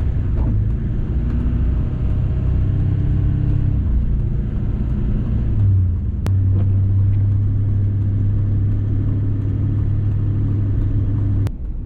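Steady engine drone and road noise inside a pickup truck's cab while it drives on a snowy road. The drone changes abruptly about six seconds in and again near the end.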